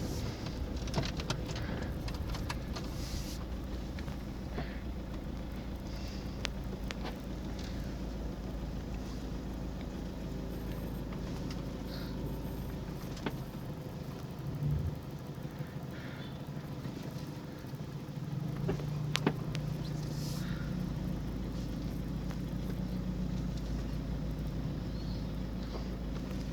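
Toyota 2KD-FTV 2.5-litre four-cylinder turbodiesel running with a steady low drone, under a few light clicks and rattles. Its note grows stronger about eighteen seconds in.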